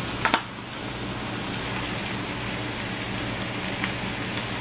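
Diced onion and red pepper sizzling steadily in olive oil in a cast iron pan over medium heat, with faint crackles. A sharp double click about a third of a second in as the plastic flip cap of a pepper shaker is snapped open.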